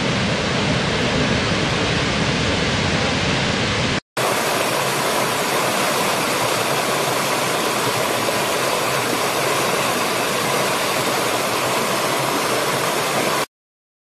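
A large waterfall thundering, a deep steady rush of falling water that cuts off about four seconds in. After a brief gap, a rocky stream rushes and splashes, a steady but brighter, less deep sound, which stops abruptly near the end.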